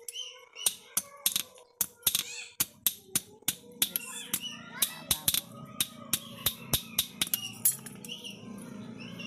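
Hand hammer striking a small steel blade on a metal anvil in quick, light, ringing blows, about three a second, as the blade is forged by hand.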